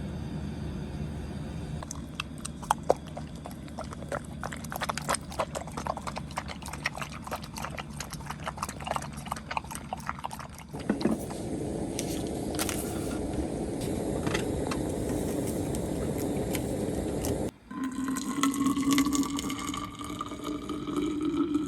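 Rain pattering on a tent: a dense run of sharp drops, then, after an abrupt change about halfway through, a steadier wash of rain. Near the end it cuts to a slowly rising whistle-like tone.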